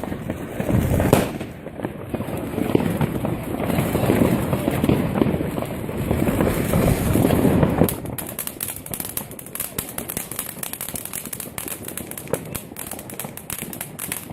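Fireworks going off all around: a dense rumble of overlapping bangs with a sharp bang about a second in, giving way about eight seconds in to quieter, rapid crackling pops.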